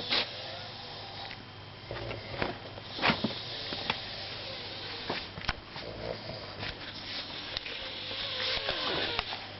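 A sleeping person breathing and snoring, with rough snuffling breaths, a few sharp clicks, and a thin wavering whistle near the end.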